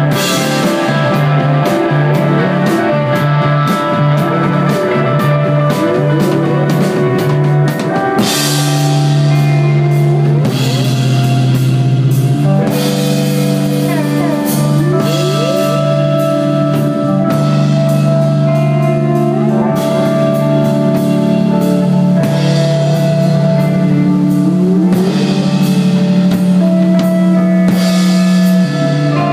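Live instrumental rock band playing: electric guitar with sliding notes over a steady bass line and a drum kit. The cymbals grow louder about a quarter of the way in.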